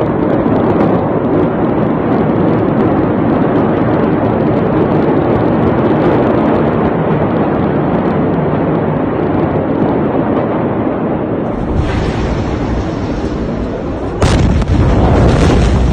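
Continuous loud crackling and popping over a dense roar, then about fourteen seconds in a sudden heavy blast with a deep rumble: the Beirut port explosion.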